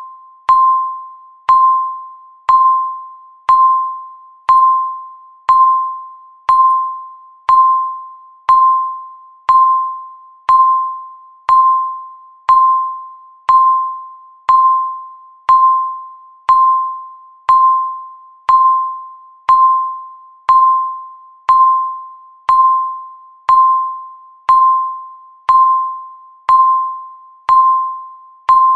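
Countdown timer's electronic tick: a short, bright, single-pitched ping once a second, each one ringing away before the next, keeping an even pace.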